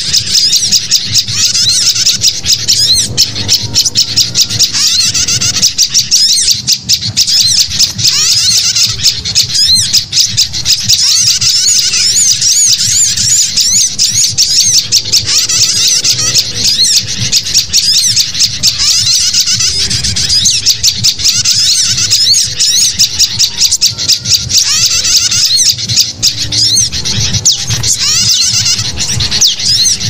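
A dense, unbroken chorus of recorded songbird calls, mainly agitated sooty-headed bulbul chatter mixed with sunbird and prinia calls, layered as a bird-trapping lure track. Rapid high chirps and trills overlap without pause, over a faint low hum.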